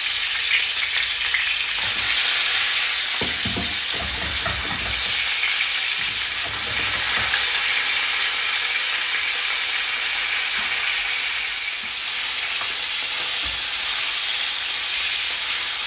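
Turmeric-coated branzino pieces sizzling in hot oil in a frying pan, a steady high hiss that grows louder about two seconds in as more fish goes into the pan. A few soft knocks come from the fish and a spatula against the pan.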